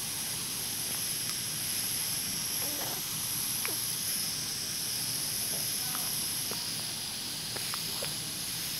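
Steady hiss of recording noise, with a few faint, brief sounds scattered through it.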